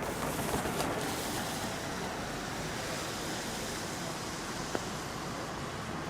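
Steady hiss of traffic driving on a wet street, tyres swishing through the water on the road.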